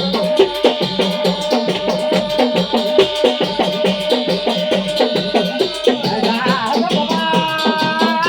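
Pahari folk music: a hudka, the hourglass drum of Uttarakhand, beaten in quick, even strokes under a steady held note. A wavering melody line comes in after about six seconds.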